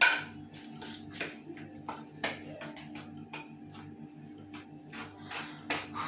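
A metal spoon clinking and scraping against a ceramic plate while stirring thick brownie batter, in irregular sharp clicks. The loudest knock comes right at the start. A faint steady low hum runs underneath.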